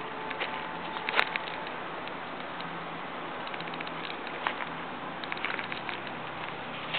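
Footsteps crunching over fallen branches and leaf litter: scattered crackles and small snaps over a steady hiss, with the sharpest snap about a second in.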